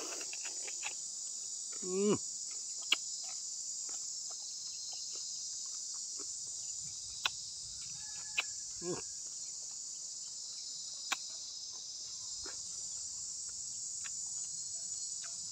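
Steady high-pitched chorus of insects, with scattered sharp clicks of eating. Two brief voice-like sounds come about two and nine seconds in.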